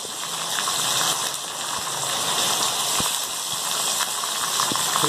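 Raw chicken pieces frying in hot mustard oil and ginger-garlic paste in a karahi, a steady sizzling hiss, with a few light knocks.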